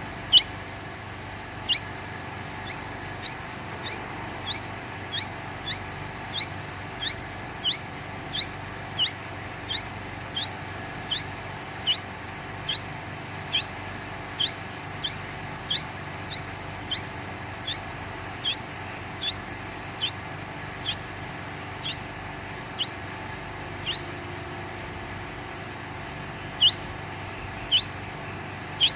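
Baby bird cheeping: short, high chirps that each fall in pitch, repeated about once or twice a second, with a pause of a couple of seconds near the end.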